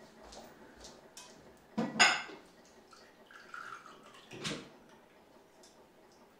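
A drink poured from a stainless saucepan through a small strainer into ceramic cups: a loud clink of metal on crockery about two seconds in, then trickling and dripping, and another knock about four and a half seconds in.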